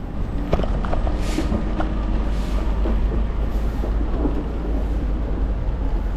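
Busy city street ambience: a steady low rumble with a few scattered small clicks and knocks.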